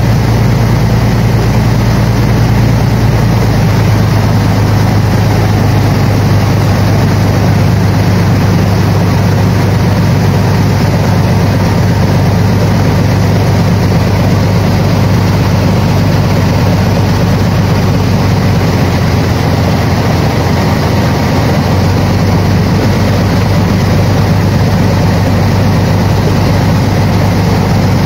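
Passenger speedboat's engine running steadily at cruising speed, a loud low drone under a steady rush of wind and water.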